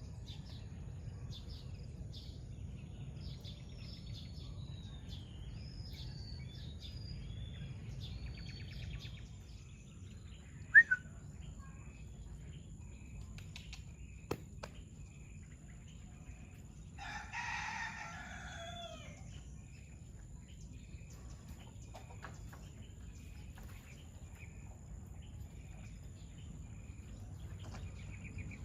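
Rooster crowing once, just past midway, a single call of about a second and a half that drops at the end, over small birds chirping and a steady high insect-like tone. A sharp click, the loudest sound, comes about a third of the way in.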